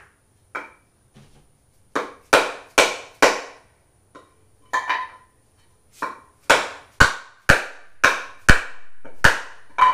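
Dead-blow hammer striking a 2x4 laid over a 6206 sealed ball bearing, driving the bearing into a mower spindle housing. About a dozen blows: a quick group of three about two seconds in, a few spaced strikes, then a steady run of about two a second, some with a short ring.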